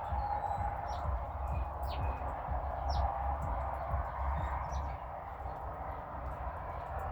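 Small wild birds chirping, with short high notes and several quick downward-sweeping calls scattered throughout, over a steady low rumble.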